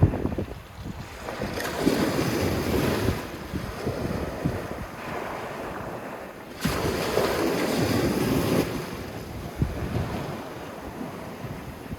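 Sea waves breaking and washing up a sandy beach, surging twice about five seconds apart, with wind rumbling on the microphone.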